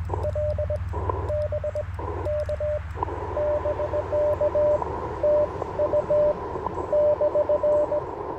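Morse code from an Icom IC-705 ham radio transceiver in CW mode: a single-pitch keyed tone of dots and dashes. In the first few seconds, bursts of receiver hiss cut in between the keyed characters, as with break-in while sending. From about three seconds in, the band hiss is steady and the Morse tones come over it, as when another station's signal is being received.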